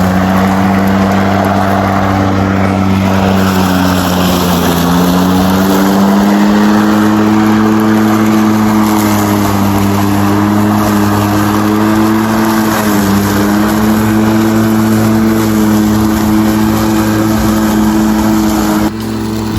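Greenworks Pro 80 V cordless electric lawn mower running while cutting grass: a steady motor-and-blade hum whose pitch sags briefly a few times under load, then recovers. The level drops suddenly near the end.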